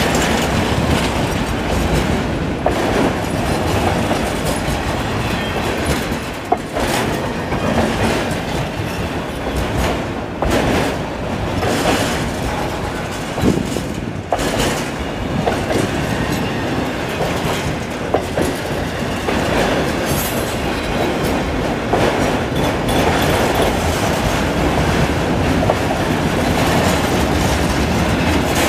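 Autorack cars of a Norfolk Southern freight train rolling past close by: a steady, loud rumble of steel wheels on the rail with repeated clacking over the rail joints.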